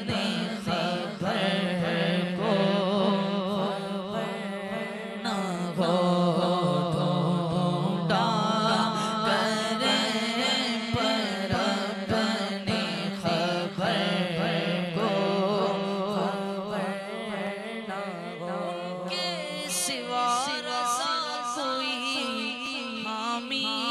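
A male voice singing a long, ornamented passage of a devotional Urdu naat with drawn-out, winding notes, over a steady low drone.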